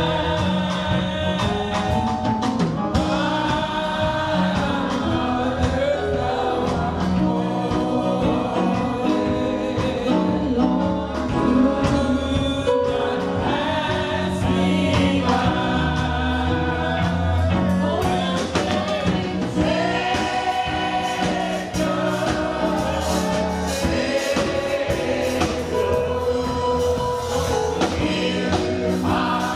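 Gospel music: a choir singing with a band, bass and drums keeping a steady beat.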